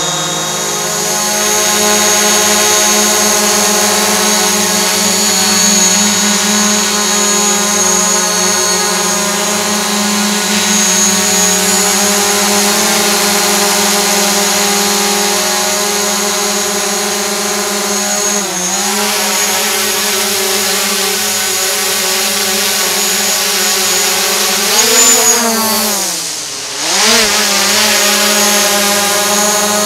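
DJI Mavic Pro quadcopter flying close by, its four motors and propellers giving a steady, many-toned buzzing whine. The pitch dips briefly about 18 seconds in and swoops down and back up near the end as the motor speed changes.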